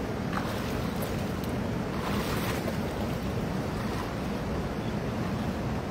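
Steady rushing of a swollen river mixed with wind on the microphone, with a few faint splashes as a man wades into the water.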